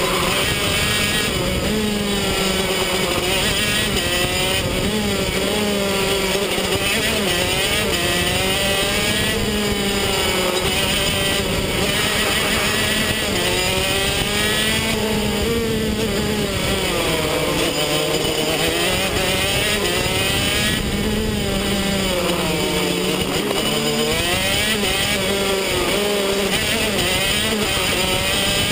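125 cc KZ two-stroke shifter kart engine at full race pace, heard onboard, revving up and dropping back over and over as the kart accelerates and brakes through the corners.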